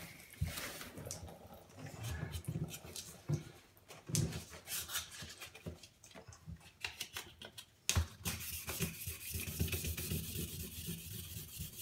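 Clicks and knocks as a sanding block with wet sandpaper is handled and set on an acrylic bathtub, then, from about eight seconds in, steady scratchy rubbing of the wet sandpaper over the cured patch of tub-repair filler.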